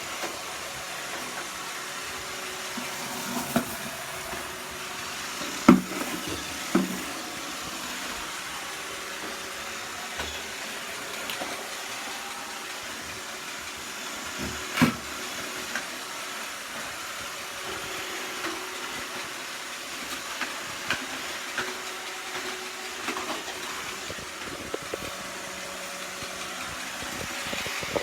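iRobot Roomba 690 robotic vacuum running, a steady motor and brush hiss, with a few sharp knocks, the loudest about six seconds in.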